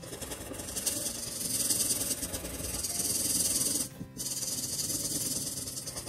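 Marker tip rubbing back and forth on paper as it colours in an area: a steady hiss of strokes that breaks off briefly about four seconds in, where the pen lifts.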